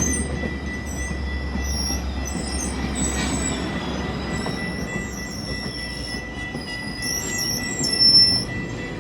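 GO Transit passenger train's coaches rolling past the crossing, wheels squealing in high, wavering tones over a low rumble that eases off about halfway through. There is a brief louder moment near the end.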